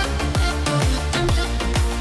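Background music with a steady dance beat, a deep kick drum falling in pitch on each stroke about twice a second.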